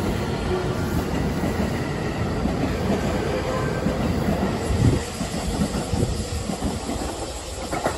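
JR West 225 series 100 eight-car electric multiple unit pulling out of the station, its cars rolling past close by. The running noise drops sharply about five seconds in as the last car clears, then fades as the train moves away.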